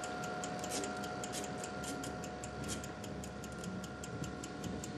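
Fast, even mechanical ticking, about six or seven ticks a second, over a faint steady whine.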